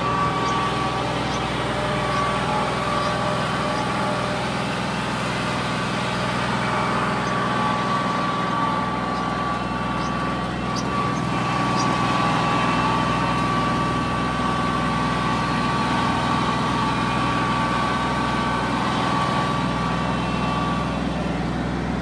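Compact tractor with a front loader, its engine running steadily as it drives along, with a steady high whine over the engine hum.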